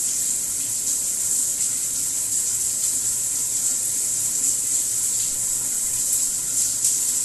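Shower running: a steady hiss of falling water spray.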